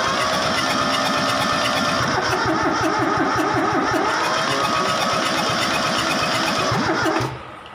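Kubota D950 three-cylinder diesel turning over on its starter motor with a fast, even rhythm, cutting off suddenly about seven seconds in without the engine catching: a crank to test for fuel delivery from the injection pump.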